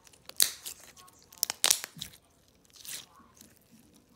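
Clear glue slime studded with little fruit slices being squeezed and stretched by hand, giving sharp crackling pops and clicks. The loudest come about half a second in and around a second and a half in, with another near three seconds.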